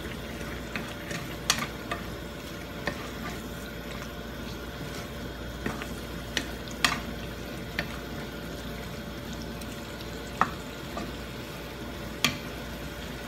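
Chicken pieces frying in a non-stick frying pan with a steady sizzle as the liquid cooks off. A slotted wooden spatula stirs them, knocking sharply against the pan every second or few.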